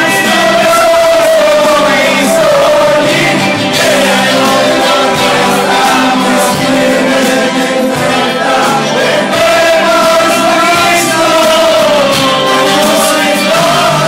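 A group of voices singing together over live music, holding long, wavering sung notes.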